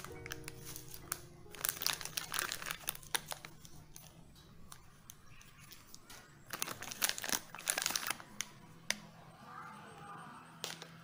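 Foil blind-box pouch and clear plastic bag crinkling and tearing as they are handled, in bursts during the first few seconds and again about seven seconds in. Soft background music plays underneath.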